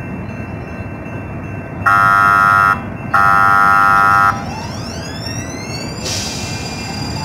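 Light-rail trolley horn sounding two blasts, each about a second long, the second a little longer, as the trolley approaches over the steady rumble of the car. A rising electric whine follows from the trolley.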